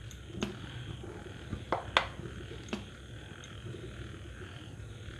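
A spoon scooping semolina idli batter from a steel bowl into the cups of a steel idli stand, with a few light clicks of spoon on steel, the sharpest about two seconds in, over a steady low rumble.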